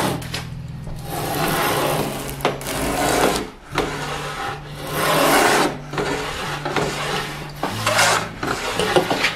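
Plough plane cutting a groove along the edge of a wooden board: repeated push strokes, each about a second long with short pauses between, the blade shaving off curls of wood. The groove is being taken down to the plane's depth stop.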